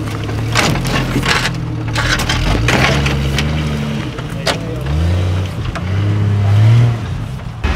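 Off-road Jeep's engine working at low speed as it crawls over a boulder, revving up in two rising pulls, the second the loudest. Sharp cracks and knocks come through during the climb.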